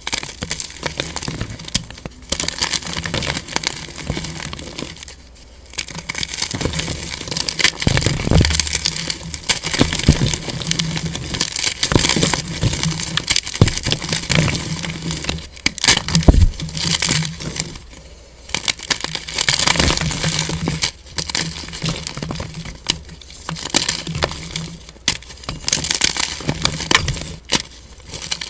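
Blocks of gym chalk crushed and crumbled between the hands: dry, crunchy crackling with sharp snaps as the chalk breaks and pieces fall onto broken chalk, with a couple of short pauses.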